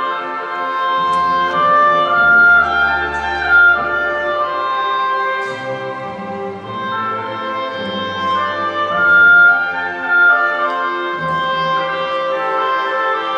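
Youth symphony orchestra playing a classical piece: strings with woodwinds and brass, held notes shifting from one to the next.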